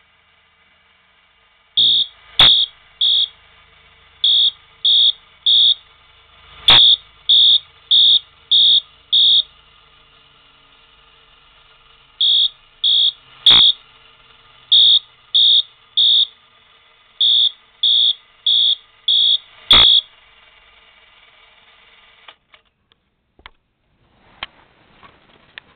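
Wheelock fire alarm horn sounding in short blasts, coded 3-3-5 by an old self-resetting Edwards coded pull station: two full rounds of three, three and five blasts, with a pause between rounds. A sharp click comes with four of the blasts, and the horn stops about three quarters of the way through. A few faint clicks follow near the end.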